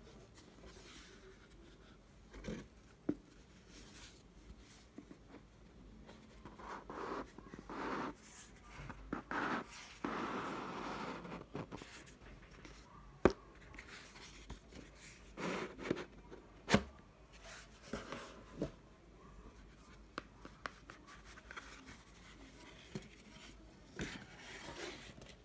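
Cardboard gift box and paper packaging being handled by hand: card sliding and scraping, paper rustling, and a few sharp taps, with the longest rustling near the middle.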